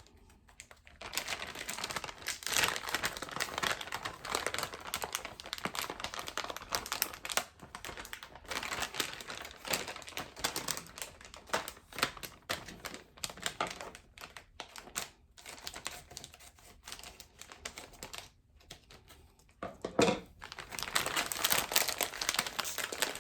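Plastic bag of shredded mozzarella crinkling as the cheese is handled and sprinkled, going on and off with short pauses. A louder thump about twenty seconds in.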